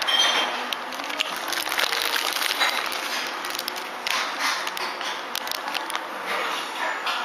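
Steady background noise of a busy room, with many small clicks and clatters.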